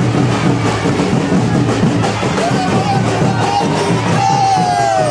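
Loud drum-driven procession music over a crowd, with a steady beat. Near the end a long falling tone cuts across it.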